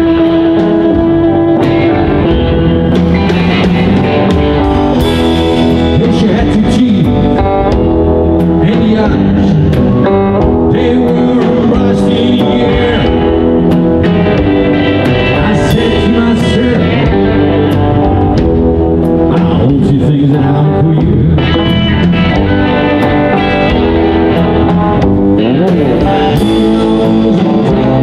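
Live blues band playing: electric guitars and drums, with a harmonica near the start and a man singing later on.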